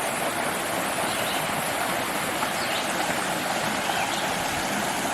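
Mountain brook rushing steadily over rocks, a close, even rush of water that starts abruptly, with faint bird chirps above it.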